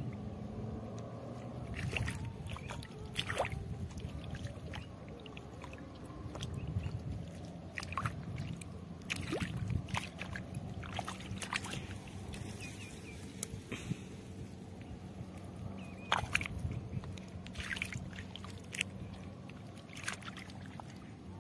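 Footsteps squelching and splashing through wet tidal mud and shallow water, with irregular short wet sucks and splashes over a low steady rumble.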